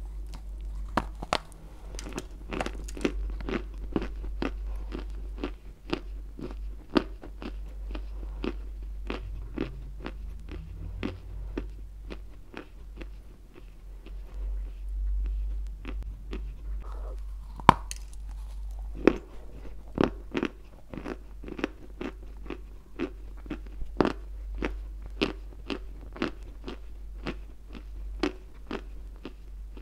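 White Turkestan chalk being bitten and chewed close to a clip-on microphone: a steady run of dry, sharp crunches, about two a second, easing off for a few seconds near the middle before picking up again.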